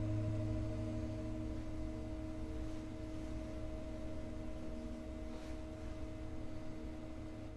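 Singing bowls ringing together in a sustained drone of several steady tones, some pulsing slowly as they beat, fading slowly.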